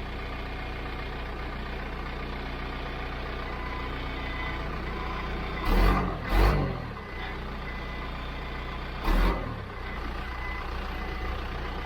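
John Deere 310 backhoe engine running steadily as the machine is put into reverse, with its backup alarm beeping faintly. Three louder bursts stand out, two close together about six seconds in and one about nine seconds in.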